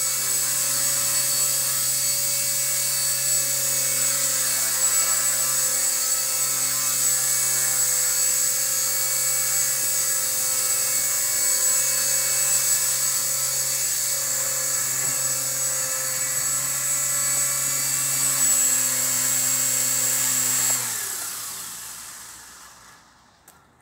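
Align T-Rex 250 DFC Pro electric RC helicopter hovering: a steady high whine from the motor over the buzz of the spinning rotor blades. About 21 seconds in, the rotor spools down, falling in pitch and fading away within a couple of seconds.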